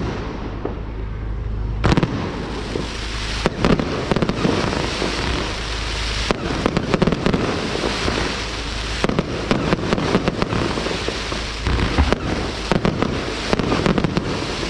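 Fireworks going off: continuous crackling, broken by many sharp bangs, some single and some in rapid clusters.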